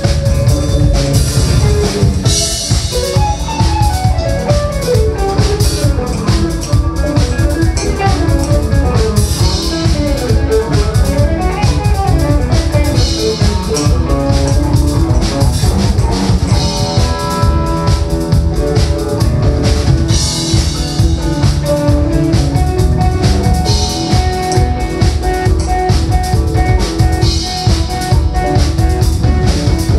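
Live band playing an instrumental: electric guitar picking a winding melodic line over a drum kit and electric bass.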